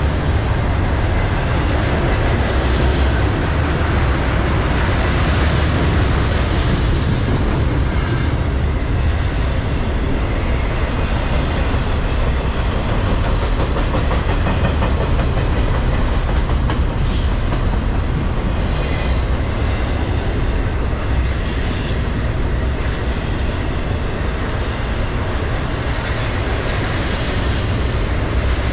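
Norfolk Southern double-stack intermodal freight train rolling past: the steady noise of its container well cars' steel wheels on the rails.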